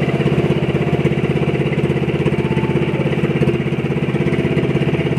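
Boat engine running steadily, a fast, even chugging.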